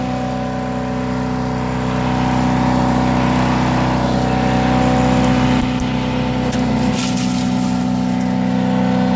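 Predator gas chipper/shredder engine running steadily at speed, with brief bursts of crackling as a branch is chewed up about six to seven seconds in.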